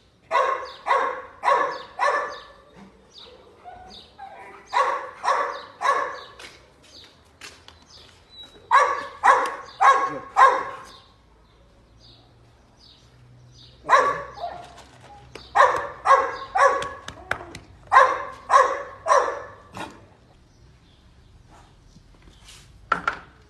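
Rottweiler barking in quick runs of three to five barks, with pauses of a couple of seconds between runs, and one last short bark near the end.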